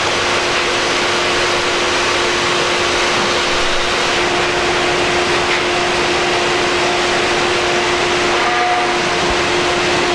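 Maple sap evaporator running: a loud, steady rushing noise with a constant low hum, the sap in its pan at a hard, foaming boil.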